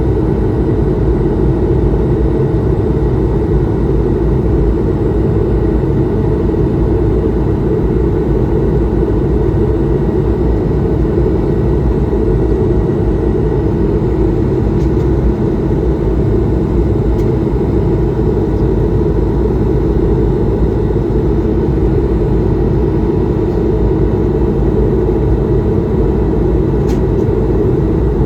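Steady in-cabin drone of an Airbus A220-300 airliner: the hum of its Pratt & Whitney PW1500G geared turbofan engines and the rush of air, with faint steady whine tones over a low rumble.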